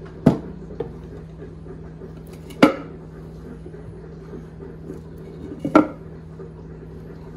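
Metal clanks as the lid and the metal resin-casting molds knock against a steel pressure pot: three sharp knocks, each with a short ring, near the start, midway and near the end, over a steady low hum.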